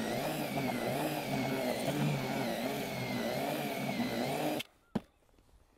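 Cordless drill with a wire whisk attachment running steadily, mixing groundbait in a plastic bucket, its motor pitch wavering slightly under load. The drill stops abruptly about four and a half seconds in, followed by a single click.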